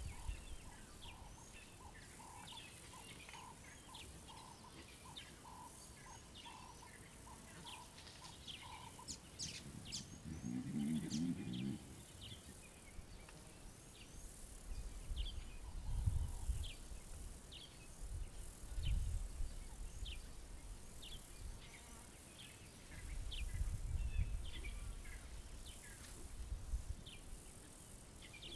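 African savanna bird chorus: many short high chirps and calls, with one bird repeating an even note about one and a half times a second for the first nine seconds. A low rumble about ten seconds in, and gusts of wind buffeting the microphone several times in the second half.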